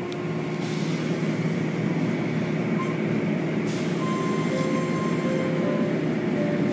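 Automatic car wash running over a car, heard from inside the car: water spray and spinning brushes beating on the body and glass make a steady rushing rumble.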